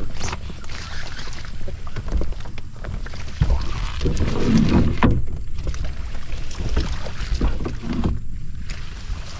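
A small boat being dragged through dense marsh vegetation in shallow water: plants brushing and scraping along the hull and water sloshing around the wading man's legs, louder about halfway through, with a low wind rumble on the microphone.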